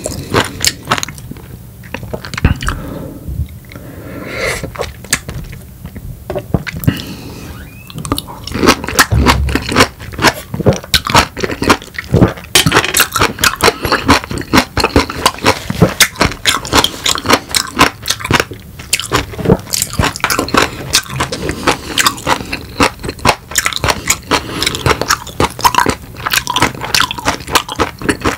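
A person chewing a peeled raw lemon close to the microphone: a dense, continuous run of short mouth clicks and small crunches.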